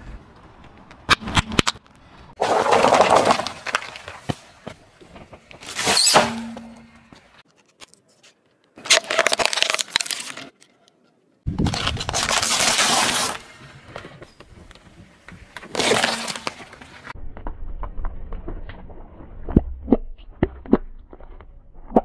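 A car tyre rolling over and crushing brittle food, dried banana chips and wafer ice-cream cones: a series of separate crunching, cracking bursts about a second long with sharp snaps between them, and many small cracks near the end.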